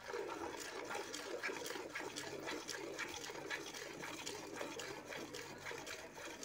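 Cow being milked by hand into a steel bucket: jets of milk squirting into the pail, one after another in a quick, steady rhythm of squeezes.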